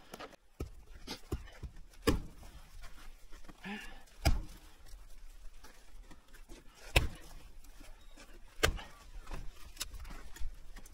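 Hatchet chopping kindling on a wooden chopping block: single sharp chops a couple of seconds apart, several in all.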